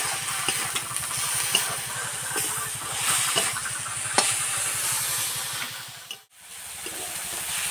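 Helencha greens frying in a wok: a steady sizzle and hiss, with a few sharp scrapes and clicks of the metal spatula against the pan. Underneath runs a low, fast throbbing hum like a motor. The sound drops out briefly about six seconds in.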